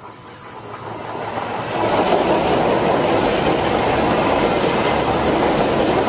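A train passing close by. The noise builds over the first two seconds, then holds loud and steady.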